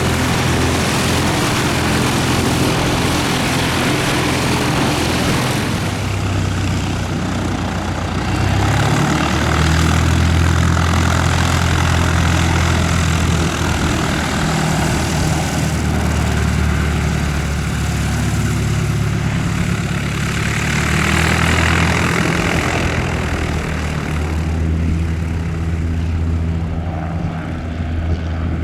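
Light aircraft's piston engine and propeller running steadily with a low, droning hum. The engine note shifts a little in pitch a few times.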